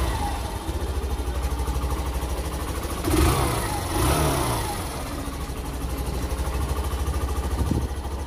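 Hero Super Splendor 125 BS6's single-cylinder fuel-injected engine idling, heard at the exhaust. Two short throttle blips, about three and four seconds in, rise and fall in pitch.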